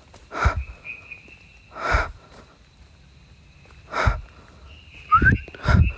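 Heavy breathing close to the microphone: five loud breaths or sniffs, spaced about one to two seconds apart and coming quicker near the end. A faint steady high-pitched whine runs underneath, and a short rising chirp comes just after five seconds.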